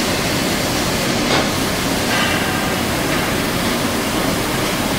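Steady rushing noise from an automated brake-disc spray-painting booth, with a brief faint higher sound about a second and a half in.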